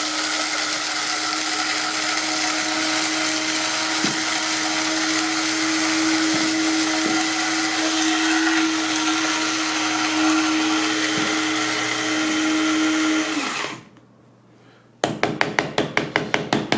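Amazon Basics electric blade coffee grinder running steadily as it grinds coffee beans, its motor whining at a steady pitch; it cuts off about three seconds before the end. After a short pause comes a quick run of taps on the grinder's sides to knock the grounds loose.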